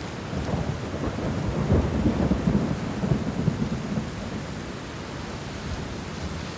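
Steady rain with a rolling rumble of thunder, loudest from about half a second to three and a half seconds in, then easing off.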